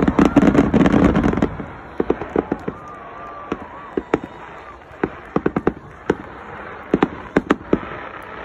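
Fireworks display going off: a dense run of crackling bangs for about the first second and a half, then scattered sharp pops that come in quick clusters of three to five.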